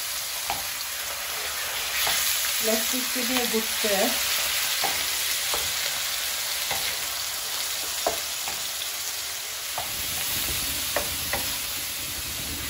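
Mutton mince sizzling as it fries in oil on a tawa, the spatula clicking and scraping against the griddle every second or so as the mince is stirred. The mince is browning.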